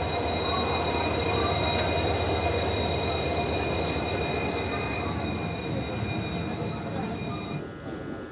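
Indian Railways passenger train rolling slowly out of a station, heard from an open coach doorway: a steady rumble of wheels on rail with a continuous high-pitched wheel squeal. The squeal comes as the train takes the crossovers out of the yard and stops suddenly near the end.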